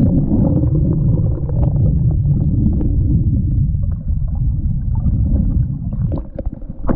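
Churning white water below a weir heard from underwater: a loud, muffled low rumble of turbulent water and bubbles. Near the end it turns to sharp splashing as the water surface breaks over the hull.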